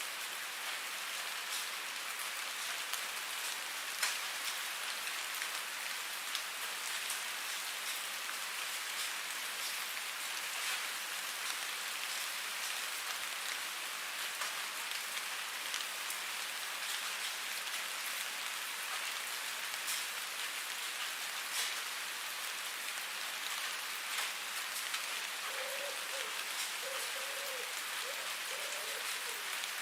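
Steady rain falling, an even hiss with individual drops ticking throughout.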